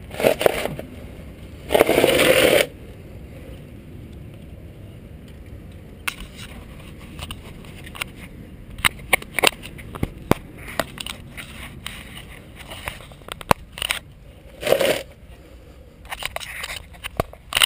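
Tools and metal parts being handled: scattered sharp clicks, knocks and scrapes, with two short bursts of rustling noise near the start and another about fifteen seconds in.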